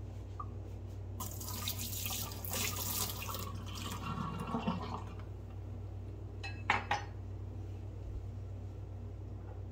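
Water poured from a ceramic mug into a stainless steel sink, splashing onto the steel and wire grid for about four seconds. A little later come two sharp clinks of the ceramic mug being set down.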